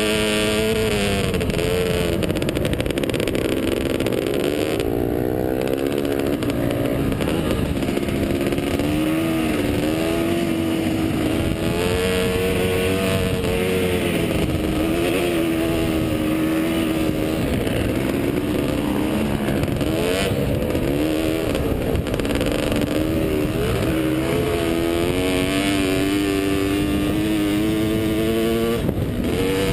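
Kawasaki KX500 two-stroke single-cylinder dirt bike engine under way, its pitch rising and falling over and over as the throttle is opened and rolled off.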